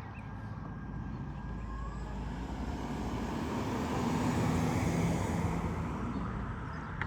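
Propeller aircraft flying past low, its engine drone swelling to a peak about two-thirds of the way in and then fading.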